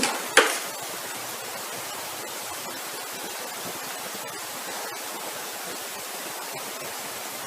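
Steady, even background hiss, with one short click about half a second in.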